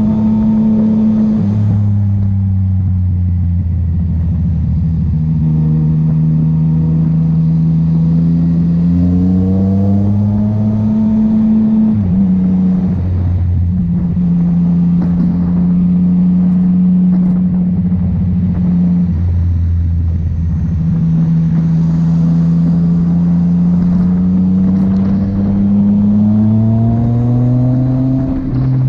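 Yamaha MT-09's inline three-cylinder engine, fitted with a new exhaust, being ridden. The revs climb and fall several times, dropping sharply about twelve and nineteen seconds in.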